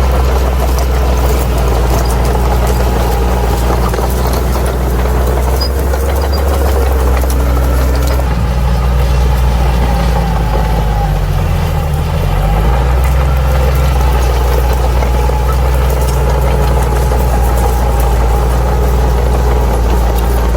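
Crawler bulldozer's diesel engine running steadily; just past halfway its note dips in pitch for a second or two and then comes back up.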